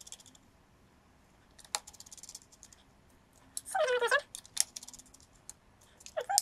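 Small screwdriver clicking and scraping as screws are turned back into the multimeter's plastic screw bosses, in scattered sharp ticks. A short, wavering squeal sounds about four seconds in.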